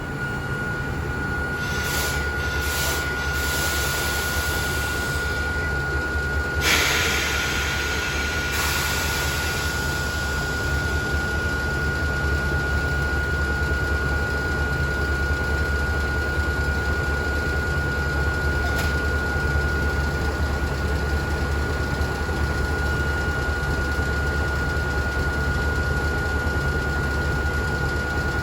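Motor-generator of an old Hakone Tozan Railway electric car switching on and running, with a steady low hum and a thin high whine. There is some hiss in the first several seconds, loudest about seven seconds in.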